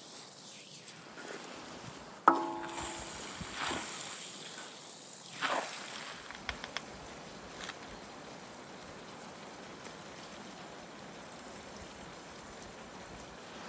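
Food frying on a large iron saz griddle, sizzling while a wooden spatula stirs and scrapes it across the metal, with one sharp ringing knock against the pan about two seconds in. The sizzle and scraping are strongest in the first half and settle to a quieter steady hiss.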